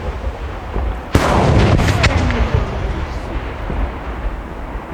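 Aerial firework shells from a Pirotecnica Pellicani display: one sharp, heavy blast about a second in, followed by a long rolling rumble, with a low rumble from other bursts underneath.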